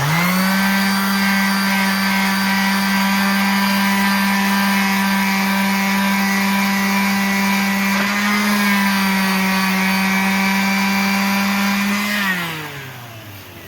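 Handheld electric power tool sanding the cured filler smooth on an alloy wheel: the motor spins up, runs steadily at a high pitch with a brief dip partway through as it bears on the work, then winds down near the end.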